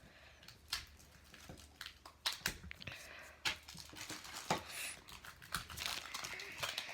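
Kit packaging being opened and handled: scattered crinkling and rustling with light clicks and taps.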